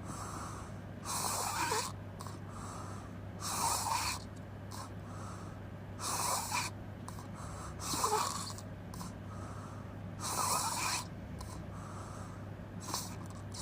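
A person snoring with the mouth open: six rasping, noisy breaths come roughly every two to two and a half seconds, and the last one is short.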